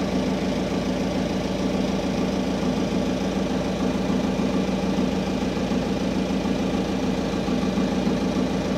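The boat's generator engine running at a steady speed, a constant even drone.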